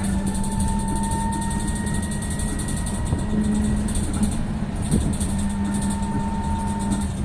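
CRRC Hengtong CKZ6105BEV05 battery-electric bus running, its traction motor giving a steady whine of several tones that rise slightly in pitch, over low road rumble. A single knock comes about five seconds in.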